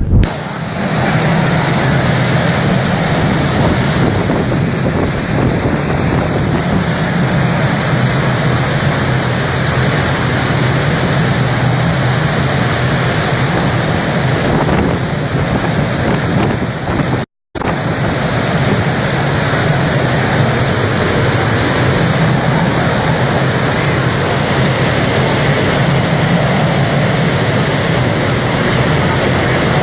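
Steady, loud rush of storm wind and water buffeting the microphone, cut off briefly about halfway through.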